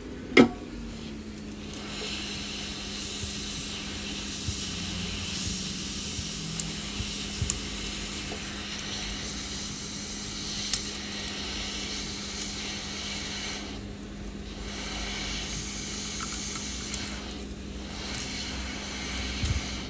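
A sharp click about half a second in, then a hot-air heat gun running steadily: an even airflow hiss over a constant low motor hum. A few light ticks sound over it.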